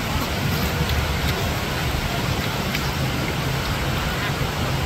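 Steady rushing roar of whitewater rapids, an even continuous noise with a deep rumble underneath.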